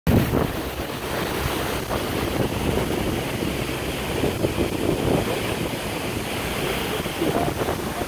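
Steady rushing of a large waterfall close by, with wind buffeting the phone's microphone.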